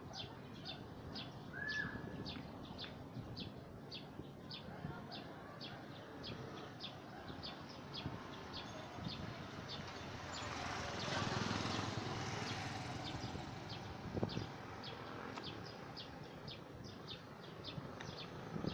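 A short, high chirp repeated steadily, about two and a half times a second. A rushing swell of noise rises and fades between about ten and thirteen seconds in.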